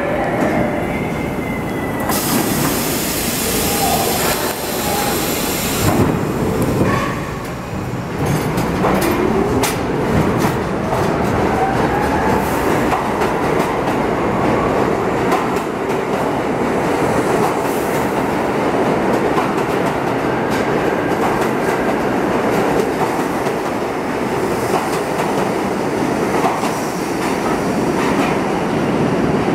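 New York City subway train of stainless-steel cars pulling out of an underground station: a burst of air hiss about two seconds in, then the motors whine rising in pitch as it accelerates, with wheels clicking over rail joints, settling into a steady rumble of the cars passing.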